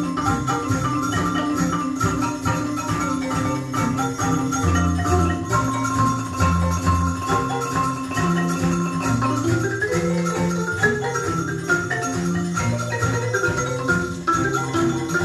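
Recorded music played from a vinyl record on a McIntosh MTI100 turntable through B&W 804 floor-standing speakers, heard in the room: quick struck notes with mallet-percussion sounds over a pulsing bass line. About two-thirds of the way through, a held note ends and the melody moves higher.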